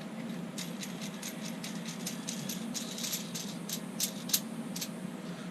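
Small parts being handled and fitted by hand: a run of light, irregular clicks and rattles, with one sharper click about four seconds in, over a steady low hum.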